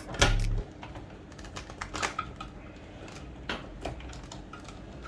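Scattered small clicks and taps of a magnetic screwdriver and loose screws on the plastic back casing of an all-in-one desktop computer, irregular, about a dozen in all. A low hum cuts off about half a second in.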